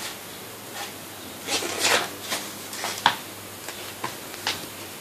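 Pages of a paperback comic book being handled and turned: a few short paper rustles, the sharpest about three seconds in.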